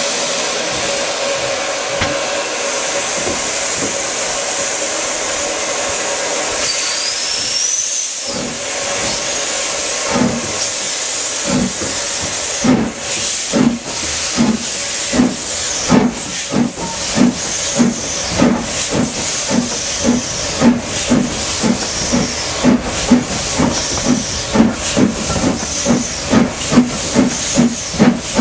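Somerset & Dorset Joint Railway 7F 2-8-0 steam locomotive 53808 hissing steam while standing, then starting its train away. Its exhaust beats begin about ten seconds in and quicken to around two a second, with steam hissing throughout.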